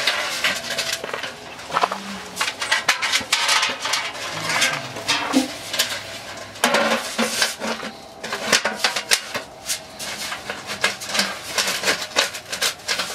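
Metal stovepipe sections clanking, rattling and scraping as they are handled and fitted onto a wood stove's chimney collar, in a steady run of irregular metallic knocks.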